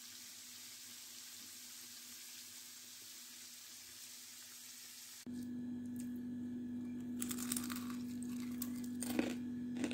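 Flour-coated chicken pieces sizzling in hot oil in a frying pan, a steady even hiss. About five seconds in it cuts off abruptly to a steady low hum with a few faint clicks.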